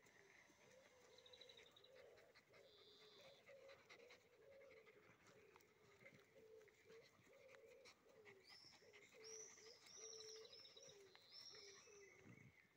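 Faint animal calls: a long run of short, low repeated notes, with high chirps joining about two-thirds of the way through.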